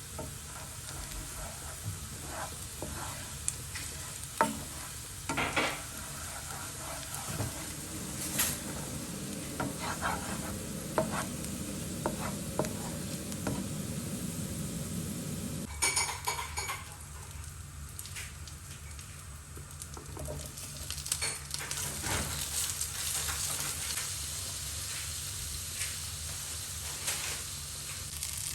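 Food sizzling in a frying pan while a utensil stirs it, with scattered scrapes and clicks against the pan and one ringing clink about halfway through.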